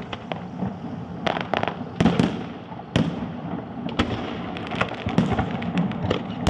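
Fireworks salute going off: a string of sharp bangs and crackles at irregular intervals, several in quick clusters, over a continuous rumble of bursts and their echoes.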